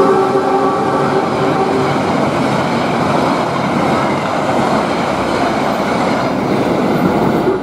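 Passenger train coaches passing close by, a loud steady running noise of steel wheels on rail. A diesel locomotive's horn fades out in the first second or two.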